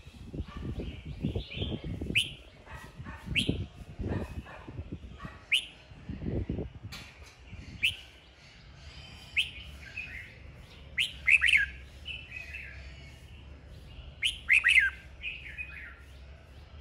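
Red-whiskered bulbul singing short, sharp, whistled phrases and chirps, with the loudest bursts near the end. Dull low thumps run through the first half.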